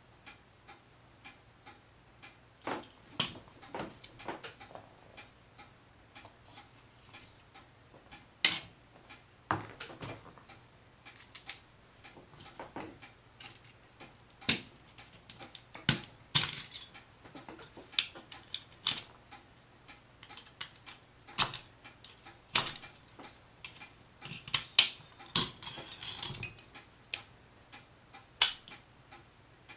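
Irregular clicks, taps and small rattles of a small screwdriver and the plastic housing of a car FM transmitter as it is handled and taken apart, with a faint, steady ticking behind.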